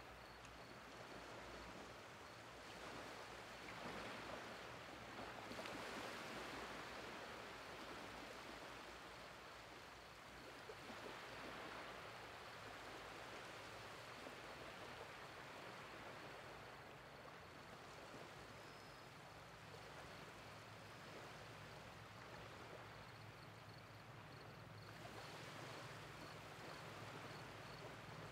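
Faint wash of small waves from the incoming tide lapping over a shallow sandy beach, gently swelling and fading.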